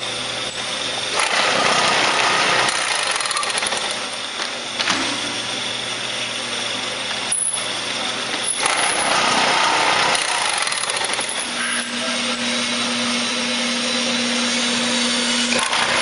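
Industrial bag-closing machine running: a Fischbein DS9C sewing head with built-in cutter stitching a bag top as a CP 4900 power end feed carries the bag through. The sound is a dense mechanical clatter that shifts in level, with a low steady hum joining for a few seconds near the end.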